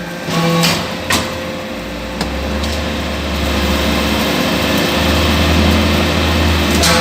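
Hydraulic briquetting press running: a steady machine hum with a few sharp knocks in the first second, then a deep low drone that comes in about two seconds in and grows stronger again near the end, as the press works under load.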